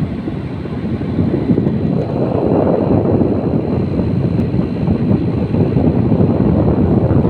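Vintage National air conditioner running: a steady, loud rush of fan air with a faint high whine held under it.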